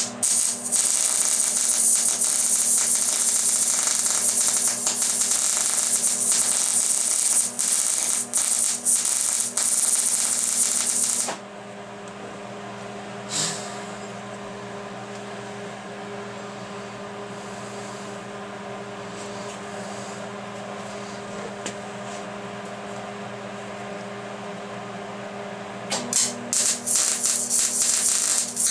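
MIG welding arc from a Millermatic 185 wire-feed welder, a loud, steady crackle with brief stutters as a bead is run on metal tubing. It stops about 11 seconds in, leaving a steady hum, and the arc is struck again in short stuttering runs a couple of seconds before the end.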